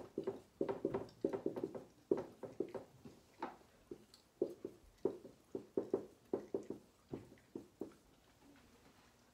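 A pen knocking and tapping on a hard writing surface while writing. The light knocks come in quick, irregular clusters that thin out in the second half and stop near the end.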